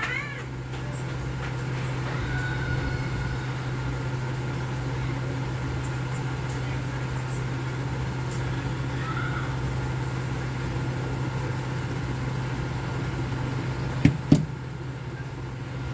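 Hot-air rework station blowing steadily, a constant whooshing hiss over a low hum, while the charging-jack pads of a phone board are reflowed. Two sharp clicks come about two seconds before the end.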